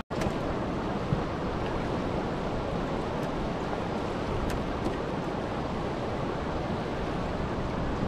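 Steady rushing of turbulent river water pouring below a dam's open gates, with a few faint ticks.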